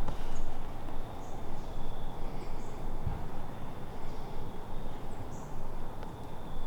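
Outdoor ambience: a steady low rumble of noise, with a few short, high bird chirps scattered through it and a faint steady high whine. There is a soft thump about three seconds in.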